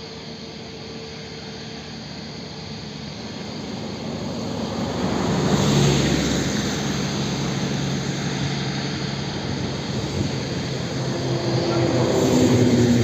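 Jet airliner's engines at high power as it rolls along the runway, a steady roar that swells about four seconds in, peaks shortly after, then builds again near the end.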